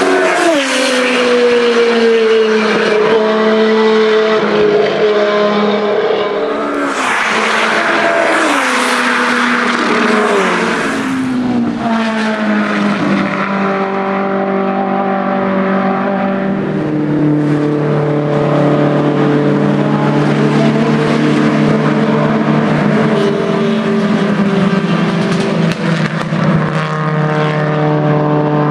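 Racing car engines at high revs, the pitch dropping sharply several times in the first half as they brake and shift down or pass by. From about the middle a steady, low, even engine drone takes over.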